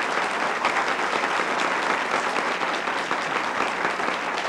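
Studio audience applauding steadily, welcoming a guest onto the show.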